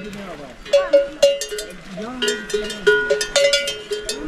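Several livestock bells of different pitch clanking at irregular intervals, as animals with bells move about.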